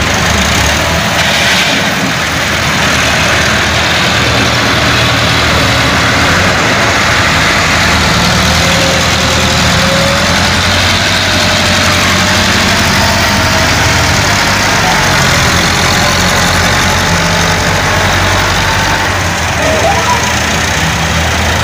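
Diesel tractor engines, including a Massey Ferguson 385, running steadily and loudly as the tractors drag levelling blades through loose soil.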